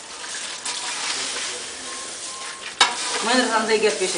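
Steady rustling hiss of chopped green fodder being handled and tossed while it is prepared for silage. There is a sharp knock near three seconds in, then voices toward the end.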